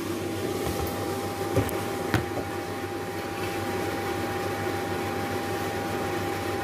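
Steady mechanical hum with a thin, high whine held throughout, broken by two sharp knocks about half a second apart roughly two seconds in.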